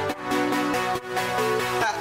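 Background electronic music: sustained synth chords with a soft beat.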